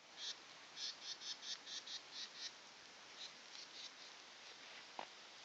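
A small bird giving a quick run of short, high chirps that thin out after a couple of seconds, over a steady hiss, with one sharp click near the end.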